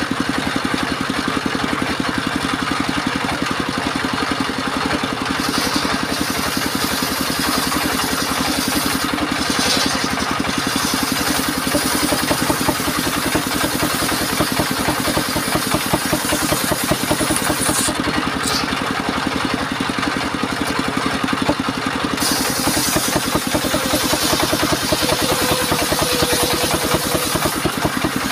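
Engine of a mobile circular-saw mill running steadily. A high hiss above it drops out briefly a few times.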